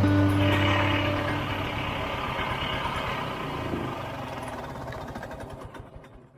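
Vintage Ski-Doo Olympique snowmobile's two-stroke engine running, growing steadily fainter until it has almost faded out near the end.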